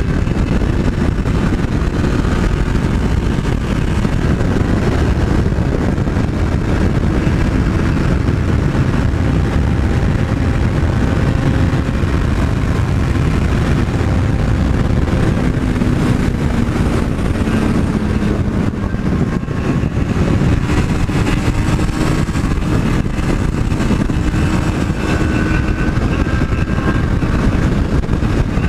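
Yamaha MT-03 motorcycle engine running at cruising speed under heavy wind rush, its note drifting down and back up around the middle.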